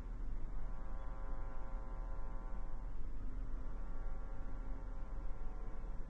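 Steady low hum with a buzzing stack of higher overtones.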